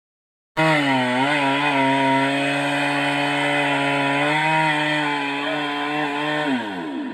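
Stihl MS 382 two-stroke chainsaw running hard while cutting wood, its pitch wavering slightly under load. Near the end the throttle is let off and the revs fall away steeply.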